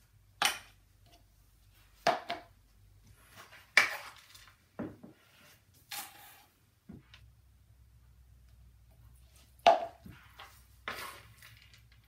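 A wooden stick knocking and scraping against a metal heart-shaped mold while a seed-and-nut mix is packed into it: a string of separate sharp clinks and knocks a second or two apart, the loudest near the middle and again near the end.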